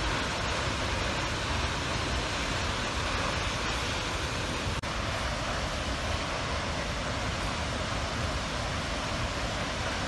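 Steady roar of Emperor Falls, a large waterfall, a constant rushing noise with no break except a momentary dropout about five seconds in.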